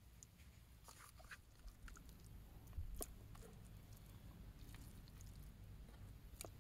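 Faint, scattered clinks and scrapes of a metal spoon against a camping cooking pot and plate as rice is served.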